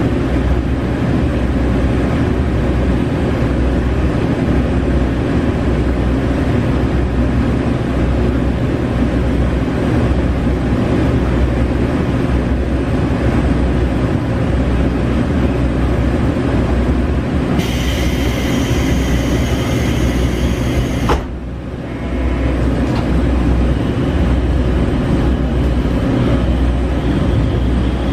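JR Shikoku KiHa 40 diesel railcar running, heard inside the passenger cabin: a steady diesel engine drone with wheel and rail rumble. About two-thirds of the way through, a high-pitched sound rides on top for a few seconds, then cuts off sharply, and the running noise briefly drops before it picks up again.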